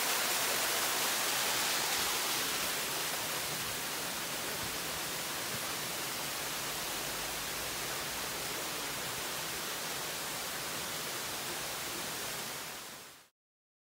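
Small waterfall splashing down a rock face into a pool, a steady hissing rush. It is a little louder at first, eases slightly, then cuts off abruptly near the end.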